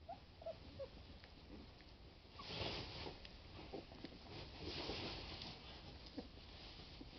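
Litter of 20-day-old Boston Lab puppies: three small squeaks in the first second, then two longer stretches of snuffling and rustling as they move about on their bedding.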